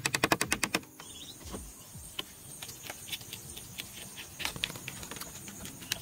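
Dry clicks and taps of bamboo being handled and worked: a fast run of about a dozen clicks a second in the first second, then scattered clicks and short runs of clicks.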